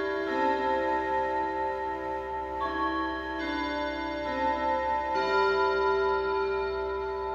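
Junghans W64 Excella S8 wall clock chiming on its gong rods: a melody of struck notes about a second apart, each ringing on and overlapping the next, with the pendulum movement ticking beneath.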